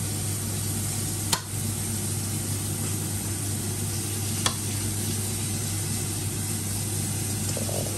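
Steak sizzling steadily in a frying pan over a steady low hum. A kitchen knife clicks sharply against a glass cutting board twice, at about one and a half seconds in and again about four and a half seconds in.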